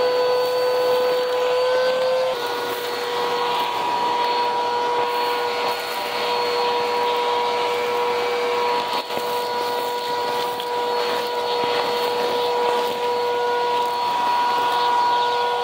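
Vacuum cleaner running steadily on a cement floor: a constant motor whine over the rush of suction, with faint crackles of grit and debris being picked up. The motor pitch shifts slightly about two seconds in.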